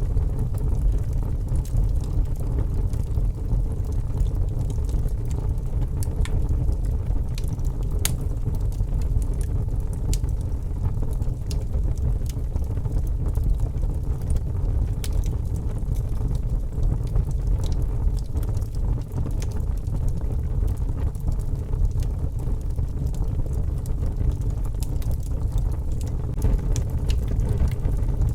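Wood fire crackling in a fireplace, with scattered sharp pops and clicks, over a steady low rumble of storm wind.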